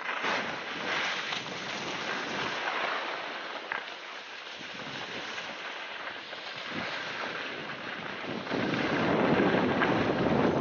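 Wind buffeting the microphone of a camera carried by a moving skier, mixed with skis hissing and scraping over packed snow. It gets louder and heavier about eight and a half seconds in as the skier speeds up.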